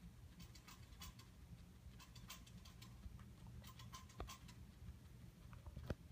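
Faint, irregular small clicks and rustles from a guinea pig moving and nibbling in hay and fleece bedding, over a low steady hum, with two soft knocks in the second half.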